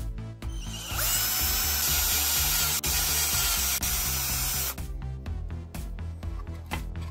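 A handheld power drill spinning up and boring a hole through a hard plastic battery-pack casing, starting about a second in with a quick rising whine and stopping just before five seconds. Background music plays throughout.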